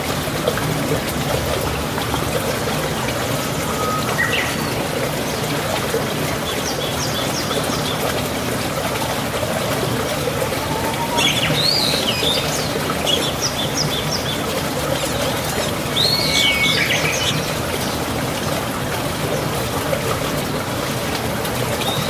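Birds chirping in short, high, sweeping calls, in scattered clusters, over a steady rush of flowing water.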